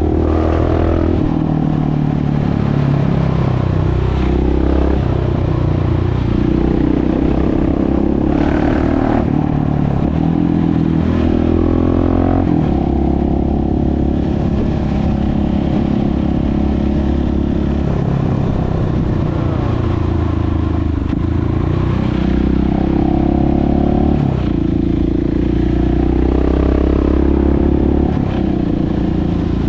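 KTM 690 SMC R's single-cylinder four-stroke engine, run without its dB-killer, pulling up through the revs and dropping back again and again as the rider works the throttle and gears.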